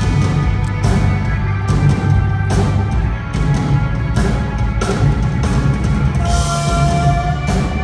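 Live rock band playing, with a steady drum-kit beat and bass under guitar and keyboard parts; a long held note comes in about six seconds in.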